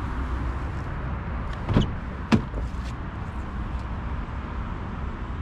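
Driver's door of a 2022 Audi e-tron GT being opened: two short clicks about half a second apart, the second the sharper, as the handle is pulled and the latch releases, over a steady low background rumble.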